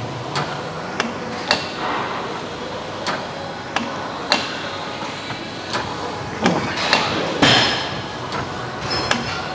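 Gym equipment clanking: sharp metallic knocks at irregular intervals, about ten of them, over a steady background.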